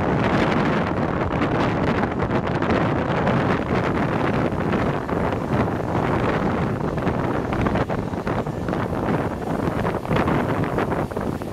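Wind buffeting the microphone hard, over a steady rumble.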